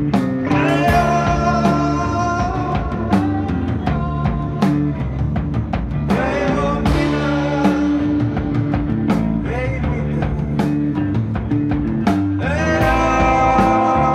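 Rock band playing live: a woman singing long held notes over electric guitar, electric bass and drums, in three sung phrases that start about half a second in, around six seconds in and near the end.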